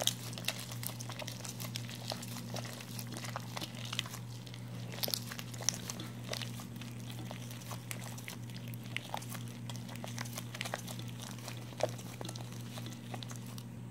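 A hand mixing and squeezing wet flour dough in a bowl, making irregular soft squelching and crackling sounds throughout. A steady low hum lies underneath.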